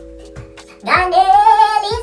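Background music with singing: held synth notes and a beat, with a high sung phrase coming in about a second in.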